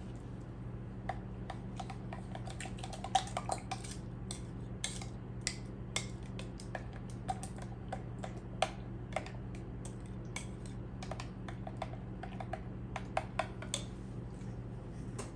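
A utensil clinking and tapping against a mixing bowl in irregular light clicks, a few a second, some with a short ring, over a steady low hum.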